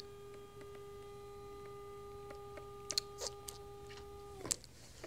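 Electric motor of a powered chair whining steadily as the seat is let down, then winding down with a falling pitch and stopping about four and a half seconds in. A few sharp clicks come just before it stops, and one comes as it stops.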